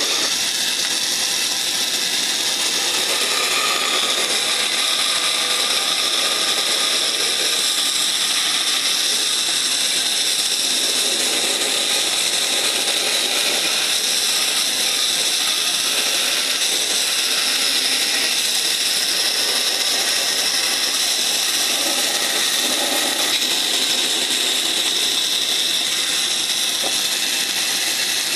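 Band saw running steadily while its blade cuts through a block of hardwood: a continuous, loud, high-pitched running noise that shifts slightly in tone as the wood is pushed through.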